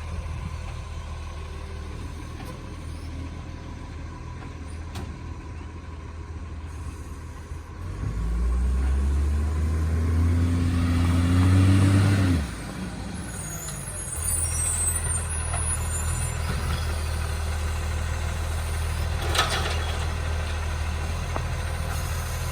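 Recycling garbage truck's diesel engine idling, then revving up with a rising note for about four seconds from about eight seconds in before dropping back suddenly to idle. A short hiss of air follows, like an air brake.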